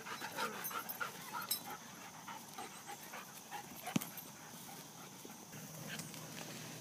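Dogs panting hard as they wrestle in rough play, with quick breathy huffs at three to four a second in the first second and a half, then fading. A single sharp click comes about four seconds in.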